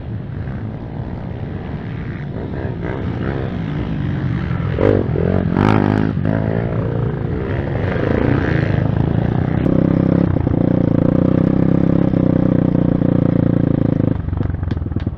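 Pit bike's single-cylinder engine running under the rider on a dirt track. The revs rise and fall about five seconds in, then hold at a steady higher pitch before dropping back near the end.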